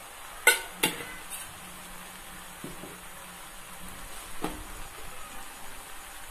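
Chopped vegetables frying in oil in a clay kadai, a steady sizzle. A few sharp clicks sound in the first second and a half, and one more about four and a half seconds in.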